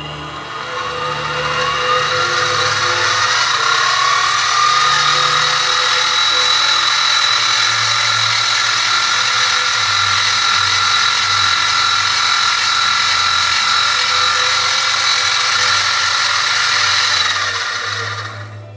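X2 mini-mill spindle running while center drilling a metal block: a whine that rises in pitch as the motor comes up to speed, holds steady and high, then winds down near the end.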